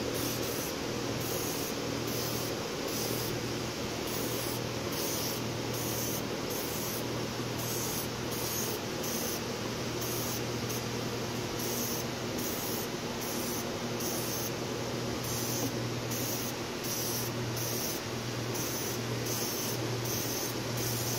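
Aerosol can of red dye penetrant hissing in many short spray bursts over engine valve seats. This is the penetrant being applied in a dye-penetrant crack check.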